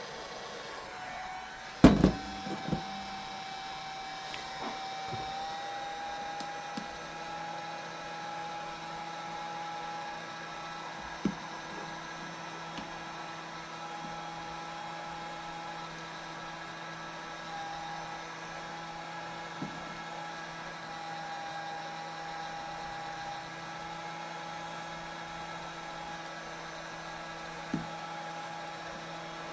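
Hot-air blower switched on about a second in and running with a steady whine over a rushing hiss, heating the tablet's screen adhesive to soften it. A sharp knock about two seconds in and a few light taps later come from handling the tablet.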